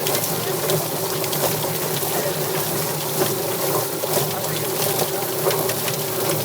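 Steady, forceful water spray over a constant motor hum, from the powered water jet used to strip feathers off a chicken.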